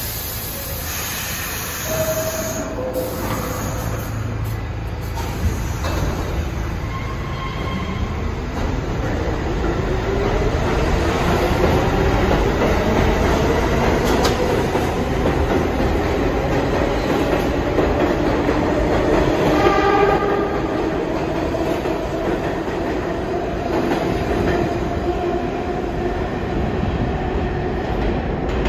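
New York City Subway train running in the station, with steady rumbling wheel and rail noise. About a third of the way in, a motor whine rises in pitch for several seconds, then holds steady.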